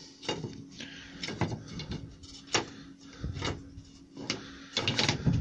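Thin planed tulipwood strips knocking and clattering against each other and the metal table as they are handled and stood together: a string of light, separate knocks.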